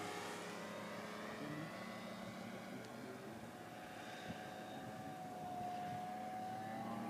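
Radio-controlled scale Sopwith biplane model's motor and propeller droning in flight, fading as the plane flies away, then a clearer, slightly rising note late on as it turns back.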